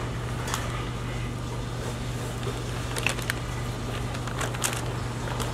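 Steady low room hum with a few faint clicks and light rustles of gloved hands handling a raw pig carcass on butcher paper and a boning knife being set down on it; three clicks come close together about three seconds in, and two more follow a second or so later.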